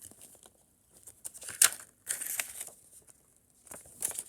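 Paper inserts from a disc case being handled, rustling and crinkling in short irregular bursts, with a sharper crackle about a second and a half in.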